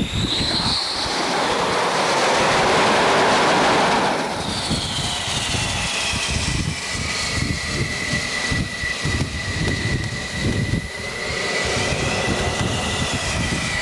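Jet aircraft engines on a carrier flight deck: a loud rush of jet noise that builds over the first few seconds and drops away at about four seconds. After that comes turbine whine, with tones sliding down in pitch over a steady high whine, and wind buffets the microphone throughout.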